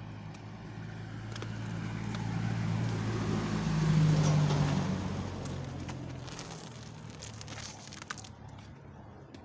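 A motor vehicle passing by: its engine hum and road noise grow louder to a peak about four seconds in, then fade away.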